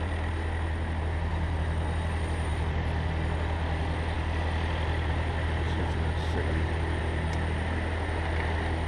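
Compressed air hissing steadily through a differential compression tester into a cylinder of a Piper Tomahawk's Lycoming engine, over a constant low hum. This is the engine's 100-hour compression check, with the piston held at top dead centre.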